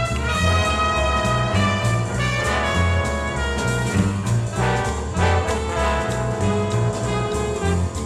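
Instrumental background music in a jazz style: brass instruments play a melody over a bass line that moves in steady steps.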